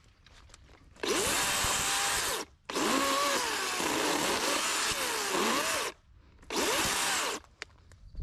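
DeWalt cordless electric chainsaw cutting through branches in three runs: about a second and a half, about three seconds, then about one second. It goes fully quiet between cuts, with no idle, and its motor whine sags and wavers as the chain bites.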